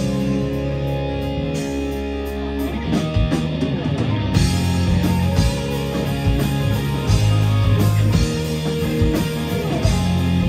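Live rock band playing an instrumental passage with no vocals: distorted electric guitars, electric bass and drum kit. About four seconds in, the full kit with cymbals comes back in and the sound fills out.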